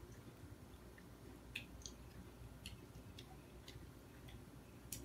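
Near silence with a few faint, scattered clicks: the small sounds of someone eating.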